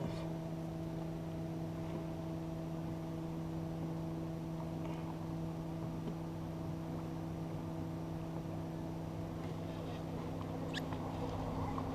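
Steady machine hum with several fixed tones, unchanging throughout, with a couple of faint clicks near the end.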